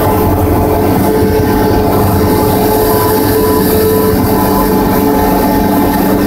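Cessna 172's piston engine and propeller droning steadily, heard inside the cockpit during final approach.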